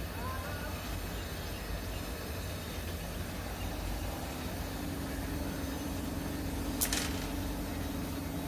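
WAP7 electric locomotive's single-arm pantograph rising to the 25,000 V AC overhead wire over a steady low hum. A steady tone joins about halfway through. About two-thirds of the way in there is a single sharp crackle lasting a fraction of a second, the chattering as the pantograph touches the live AC conductor.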